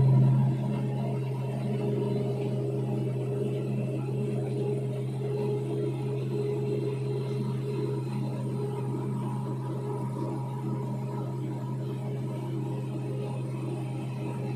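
Diesel engine of a Komatsu 825 motor grader running steadily under load while it grades a muddy road: a deep, even hum that eases slightly about half a second in.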